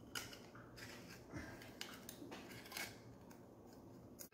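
Faint scraping and clicking of a knife blade working against the shell of a rock scallop to pry it open, a few irregular clicks about half a second apart.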